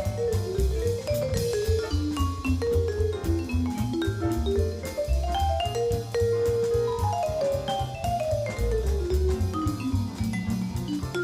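Background music: a jazzy tune of quick mallet notes, vibraphone-like, running up and down in phrases over a steady drum beat.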